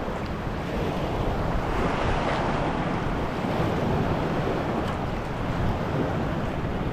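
Choppy sea water sloshing and lapping around a wading angler, with wind rumbling on the microphone.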